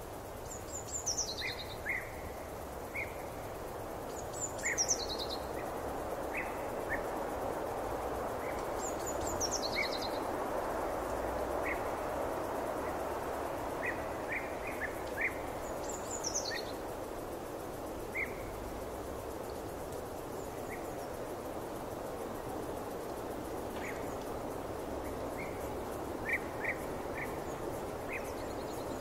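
Forest ambience: a steady, soft rushing background noise with birdsong over it. A bird gives a short high call that slides downward, four times, and brief chirps sound here and there throughout.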